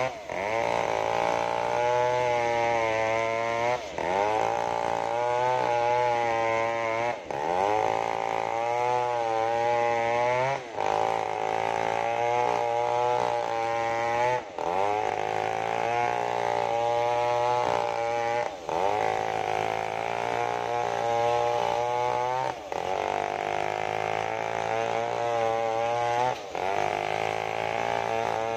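Two-stroke chainsaw cutting through a sengon log. Its engine pitch sags and climbs as it works, with a brief drop in level every few seconds.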